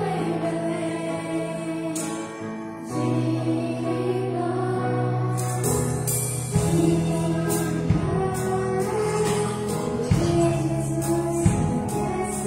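Children's choir singing a Christmas song with a small band: held sung notes over bass and piano, with drum hits coming in about halfway through.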